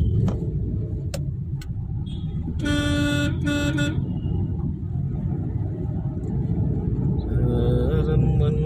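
Steady road-traffic and engine rumble. A vehicle horn gives two short toots in quick succession about three seconds in.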